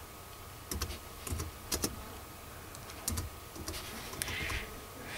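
Computer keyboard keys being typed in short, irregular runs of single clicks as a file name is entered.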